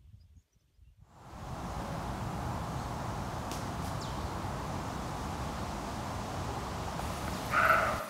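Steady outdoor nature background noise that fades in about a second in, with a couple of faint ticks. Near the end comes one short, louder animal call.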